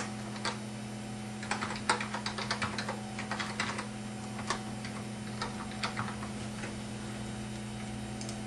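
Computer keyboard keys clicking in an irregular run as a password is typed, over a steady low hum; the keystrokes stop about six seconds in.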